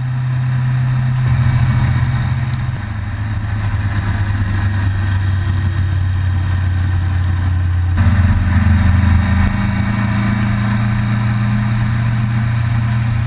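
Motorcycle engine running at a steady road speed with wind rush over it. The engine note shifts to a different pitch about three seconds in and again about eight seconds in.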